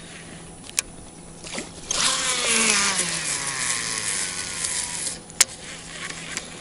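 Baitcasting reel's spool whirring during a cast with a big lure. The whir starts suddenly and falls in pitch for about three seconds as the spool slows, then a sharp click as it stops.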